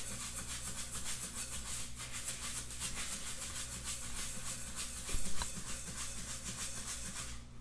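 Japanese rice being rubbed and swished by hand in a pot at the sink to wash it: a fast, gritty rattle of grains, with one knock against the pot a little after five seconds. The rattle stops just before the end.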